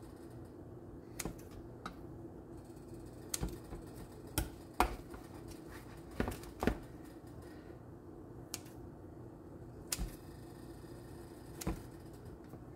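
Kitchen scissors snipping through biscuit dough: the blades close with about ten short, sharp clicks at irregular intervals of a second or so.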